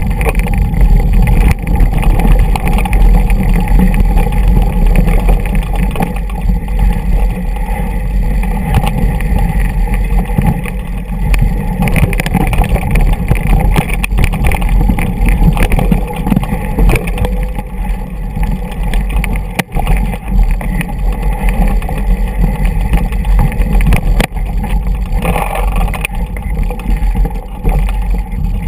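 Steady, loud wind and ride noise on a GoPro camera carried on a mountain bike descending a rocky dirt trail, with frequent knocks and rattles from the bumps.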